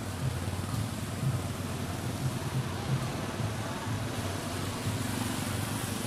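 A steady low engine rumble with a fainter hiss above it.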